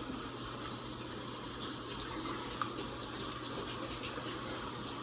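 A steady rushing hiss with a constant low hum beneath it, and one faint click a little past halfway.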